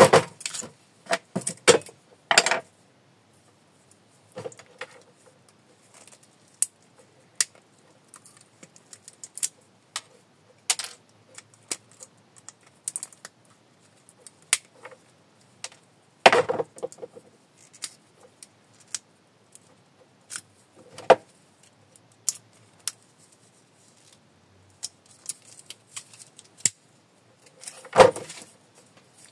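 Irregular small clicks and scrapes of hand work on a plastic coil bobbin from an electricity meter: a blade tool prying and scraping at it and parts clinking. A few louder knocks come about 2 s in, midway, about 21 s in and near the end.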